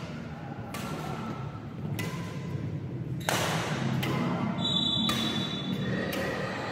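Badminton rally: a shuttlecock struck by rackets every second or so, each hit echoing in the hall, with music playing underneath.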